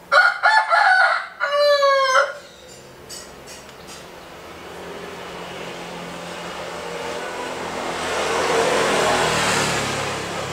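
A rooster crowing once at the start, a call of several parts lasting about two seconds that ends on a long falling note. After it, a vehicle passing, its noise swelling to a peak near the end and fading.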